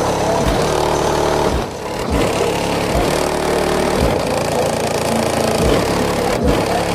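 Bass-heavy electronic music played very loud through a high-power car subwoofer system, with deep bass kicks hitting every half second to a second and the sound distorting.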